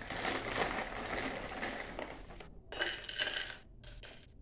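Dried amla (Indian gooseberry) pieces handled in a rustling foil pouch and tipped into a stainless steel bowl. About three seconds in comes a clink, and the steel bowl rings briefly.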